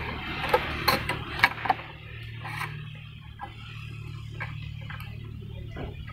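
Sharp metallic clicks and clinks of pliers twisting tie wire around crossing steel rebars, several in the first two seconds and a few lighter ones later, over a steady low hum.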